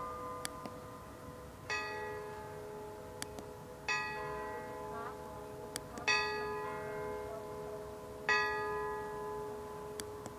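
A bell tolling at a slow, even pace: four strokes a little over two seconds apart, each ringing on and fading slowly before the next.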